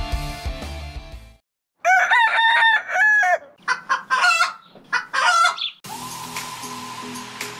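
A rooster crowing: a long call in several rising-and-falling parts, followed by a run of shorter broken calls. Music fades out just before it, and new music starts right after it ends.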